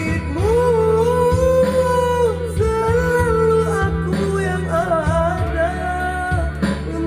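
A woman singing long held notes with a slight waver over backing music with guitar.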